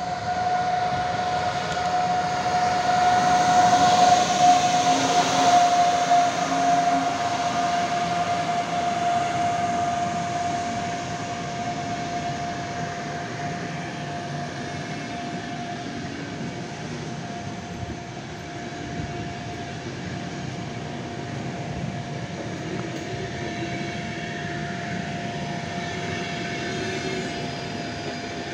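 Passenger train hauled by an EU44 electric locomotive passing at speed: a continuous rumble and rush of wheels on rail, loudest a few seconds in as the locomotive goes by, then steady as the coaches roll past. A level crossing's warning signal keeps up one steady high tone throughout.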